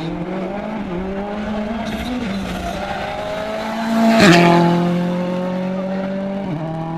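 Rally car engine on a special stage, its revs rising and falling, then passing close about four seconds in with a sharp drop in pitch as it goes by, and stepping down through further notes as it moves off.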